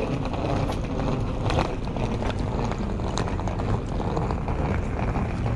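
Wind rumbling steadily on the microphone while moving along a railway station platform, with scattered clicks and knocks from footsteps and wheeled luggage.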